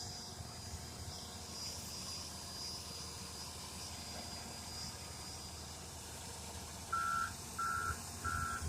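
John Deere excavator's diesel engine running steadily under work. Near the end a backup alarm starts, three evenly spaced single-pitch beeps, the loudest sound here, signalling that the machine is travelling.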